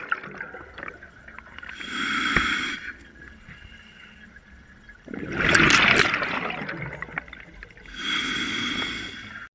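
Scuba diver breathing through a regulator underwater: a hissing inhale about two seconds in, a loud rush of exhaled bubbles about halfway through, then another hissing inhale near the end.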